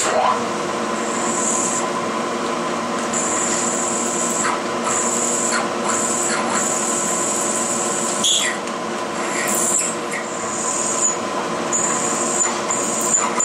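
Milling machine spindle running with a twist drill cutting into a metal plate: a steady motor hum under a high squeal from the drill that comes and goes as it is fed in, breaking into short quick pulses near the end.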